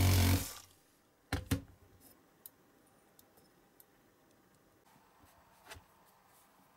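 Cordless drill running, then winding down and stopping within the first second. After it, two sharp knocks close together and a few faint clicks of small parts being handled.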